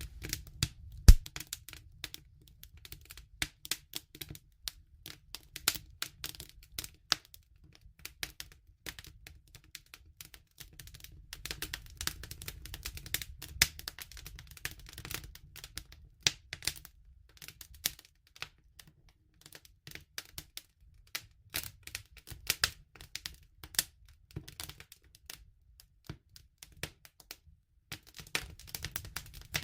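Campfire crackling: irregular sharp pops and snaps over a steady low rumble of flame, with one loud pop about a second in.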